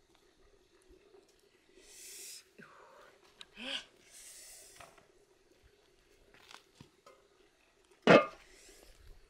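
Cloth rustling as a bundle of steamed sticky rice is lifted out of a steamer pot, then a single loud clank of an aluminium pot lid set down on the pot about eight seconds in.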